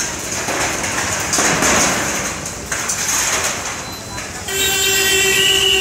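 Concrete debris crumbling and falling in noisy rushes as a demolition excavator's arm breaks the top of a building. About three-quarters in, a vehicle horn starts and is held steadily.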